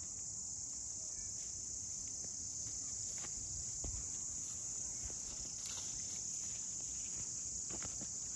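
Steady, high-pitched chorus of crickets, with a few faint clicks and rustles from footsteps and carried sticks.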